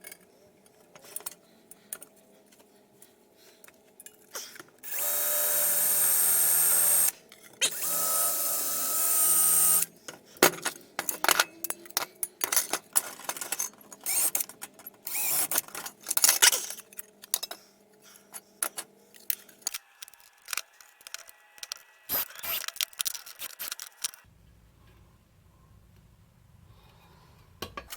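Power drill boring two holes through sheet metal, two steady runs of about two seconds each, followed by clattering and clicking as the metal pieces are handled.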